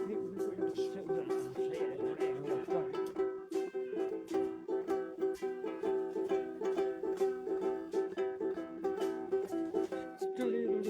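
Acoustic guitar strummed in a steady rhythm, its chords ringing on, with no singing over it.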